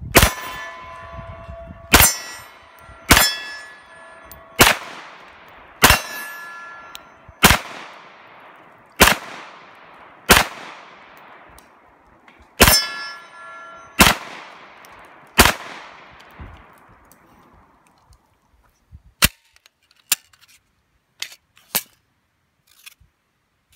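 Eleven shots from a 9mm Glock 34 pistol fired slowly, one every one to two seconds, each followed by a long echo, several with a ringing ping from a steel target being hit. A few faint clicks of the pistol being handled follow near the end.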